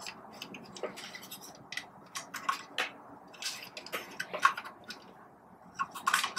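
Irregular clicks and rattles of a hollow plastic coffee-grinder chassis and its wiring harness being handled, as the wires and plug connectors are worked through the hole in the housing.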